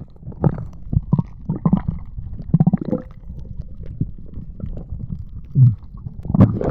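Muffled underwater sound as heard by a camera held below the surface: a low rumbling with irregular knocks and bubbling. Right at the end comes a sudden loud rush as the camera breaks the surface.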